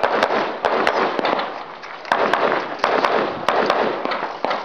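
A string of about a dozen gunshots at irregular intervals, some in quick pairs, each followed by a trailing echo.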